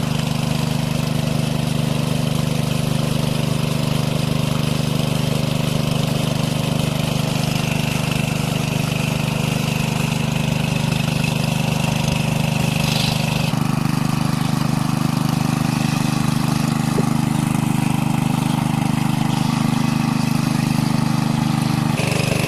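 A small engine running steadily at an even speed, with a slight change in its tone about two-thirds of the way through.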